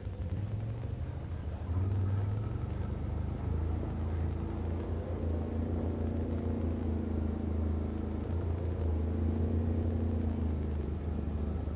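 Quad bike (ATV) engine running while being ridden, a steady low drone that gets louder about two seconds in, its pitch rising and falling a little with the throttle.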